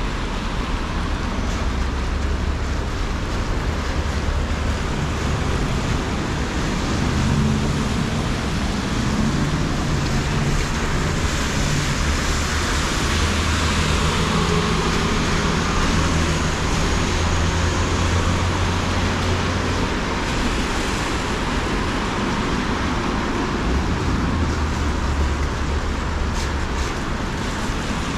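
City street traffic: a steady wash of vehicle noise with a low engine hum that swells and fades as vehicles pass.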